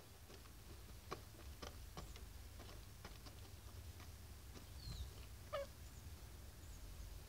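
White Australorp hens pecking at feed: faint, scattered beak taps, with a short high chirp and a brief cluck about five seconds in.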